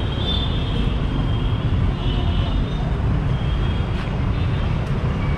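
Traffic on a busy city street: a steady low rumble of vehicles, with a few faint distant horns.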